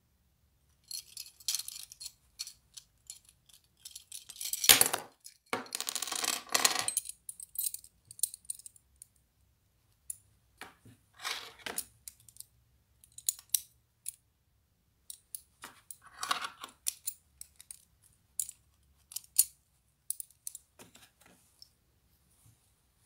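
Metal and plastic parts of a Beyblade spinning top clicking, clinking and scraping against each other as they are handled and fitted together by hand. The clicks come on and off, with a louder rattle lasting about two seconds about five seconds in.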